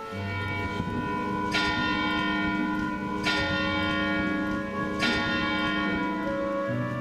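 Church bell tolling: three strokes about a second and three quarters apart, each ringing on into the next over a steady hum.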